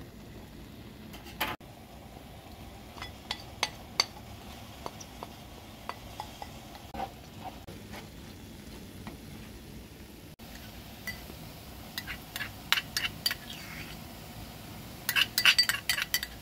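Wooden spoon stirring and scraping a thick ground-walnut and herb filling in a baking tray, with scattered knocks of the spoon against the tray. Near the end a quick run of clinks as a metal spoon scoops pomegranate paste from a ceramic bowl.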